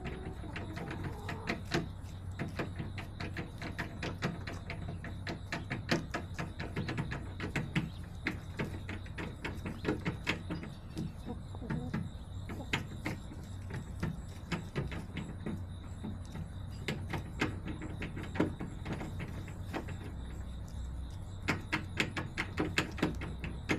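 Chickens pecking at a hard surface: rapid, irregular sharp taps and clicks, like typing, over a low steady hum.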